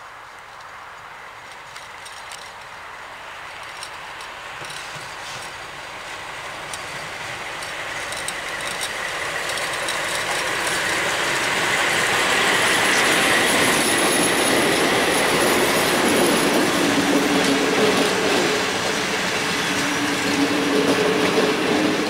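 SU45 diesel locomotive with its Fiat-type engine approaching and passing close by, growing steadily louder over the first dozen seconds. Its passenger coaches then roll past with wheels clattering on the rails.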